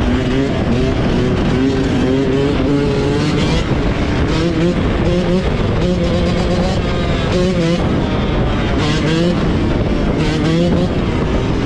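Off-road engines revving hard, their pitch climbing and dropping again and again, as when riding through the gears or blipping the throttle.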